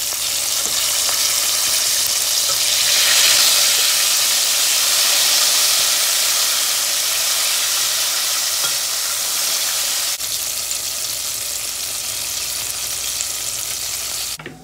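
Breaded chicken pieces deep-frying in a pot of hot oil, sizzling steadily, a little louder around three to five seconds in.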